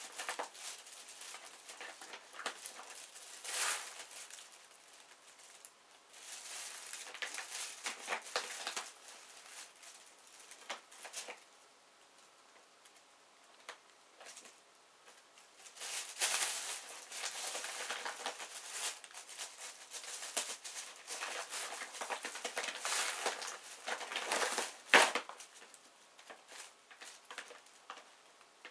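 Thin plastic shopping bags crinkling and rustling as two cats nose and root through them. The rustling comes in irregular stretches with a quiet pause in the middle, and one sharp, loud crackle near the end.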